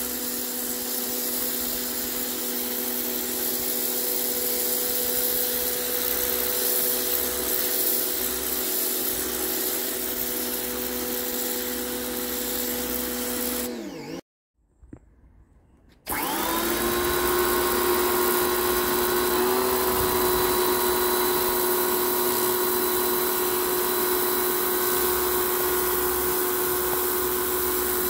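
Top Tech pressure washer running, its motor and pump humming steadily under the hiss of the water jet on paving slabs. About halfway the hum sinks in pitch and stops for a couple of seconds, then starts up again and settles to a steady, slightly higher hum.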